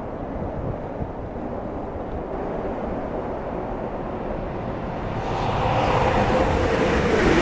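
Wind rumbling on the microphone, then from about five seconds in a Frecciarossa ETR 500 high-speed train approaching and running past close by: a rising rush of wheel and air noise with a humming tone that drops slightly in pitch as it goes by.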